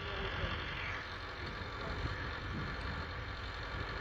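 Case 4210 tractor's 3.9-litre four-cylinder diesel engine running steadily while the tractor works a four-furrow mounted plough.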